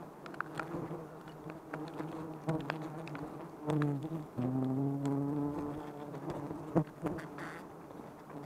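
A swarm of wild honeybees buzzing around their open comb, stirred up as a hand works at the comb to take honey. A single bee buzzes loud and close from about three and a half to five and a half seconds in, and there are a few faint clicks.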